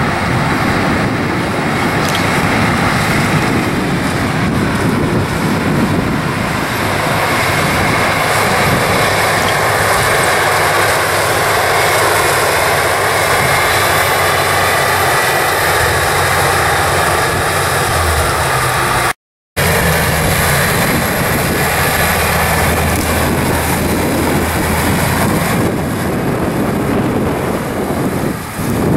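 Diesel engine of a Versatile 290 tractor running steadily under load as it pulls a disk through corn stalks. The sound drops out to silence for a split second about two-thirds of the way through.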